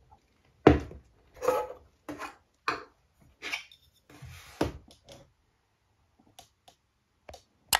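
Things being picked up and set down on a desk around a glass vase: a run of separate knocks and clatters, about eight over five seconds, then a few faint ticks.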